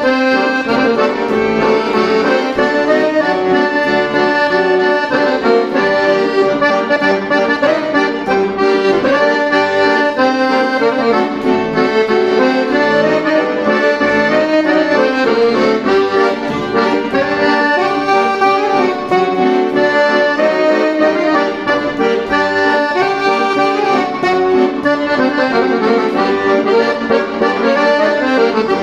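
Cav. Della Noce piano accordion playing a tarantella: a melody on the treble keyboard over a bass-button accompaniment, steady and continuous.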